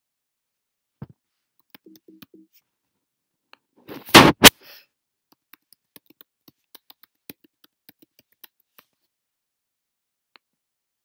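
Handling noise close to the microphone: a soft thump, then two loud knocks in quick succession about four seconds in, followed by scattered faint clicks and taps.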